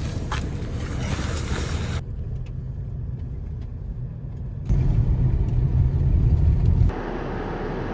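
Van engine and road noise while driving, as a steady low rumble. It changes abruptly about two, four and a half and seven seconds in, as short clips are cut together.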